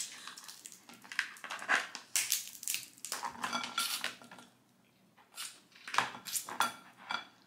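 Snow crab legs being snapped and cracked apart by hand: a run of sharp shell cracks and clicks, with a pause of about a second in the middle.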